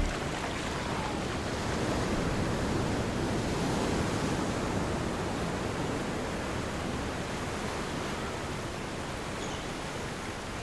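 Ocean surf: a steady rushing wash of waves that swells a little in the first seconds and then slowly fades.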